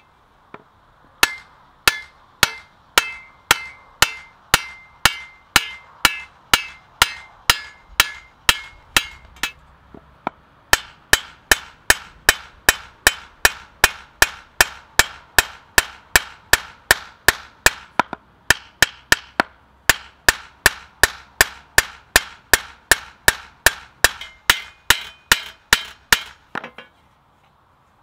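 Steel hammer peening the edge of a scythe blade on a small peening anvil, thinning the edge cold: even, ringing metal-on-metal strikes about two to three a second. There is a short pause about ten seconds in, and the strikes stop about a second before the end.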